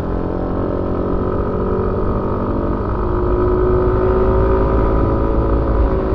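Suzuki Avenis 125 scooter's single-cylinder four-stroke engine running under way, heard on board. Its note climbs a little about halfway through and then holds steady.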